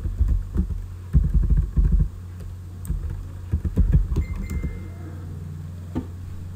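Computer keyboard keystrokes typing a word, in quick runs of clicks with pauses between them.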